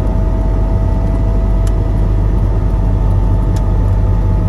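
Lada Niva cabin at cruising speed in fifth gear: a steady low engine and road drone with a faint steady whine, and a couple of faint ticks. There is no transfer-case whine or vibration rattle: the transfer case has been modified with electric actuators in place of the shift levers.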